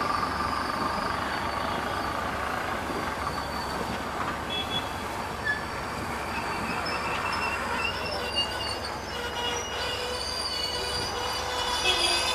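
Passenger train coaches rolling past on steel rails, their wheels squealing with several thin high tones over a steady rumble; the squeal grows stronger and more layered in the last few seconds.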